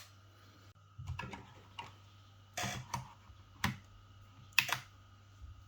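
Light clicks and knocks, about seven of them at uneven intervals, from a hair clipper being handled after it has been switched off.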